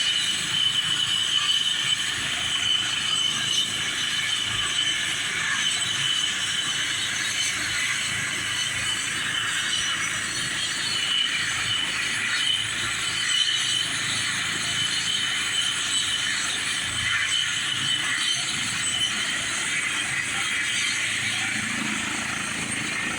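Helicopter turbine engine running with the main rotor spinning on the ground ahead of takeoff: a steady high whine over a dense rushing noise.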